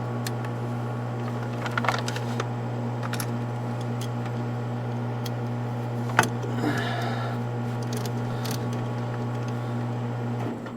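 Metal hand tools clinking and clicking against bolts while brake hardware is worked loose, a few sharp clicks spaced out over several seconds, the loudest about six seconds in. Under them runs a steady low hum that cuts off just before the end.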